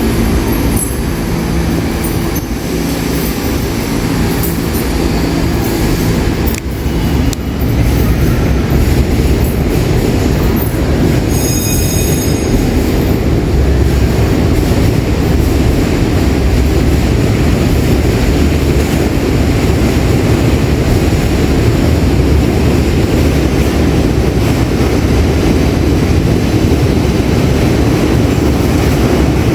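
New York City subway train running on the rails with a steady, loud rumble of wheels and cars. About twelve seconds in there is a brief high-pitched wheel squeal.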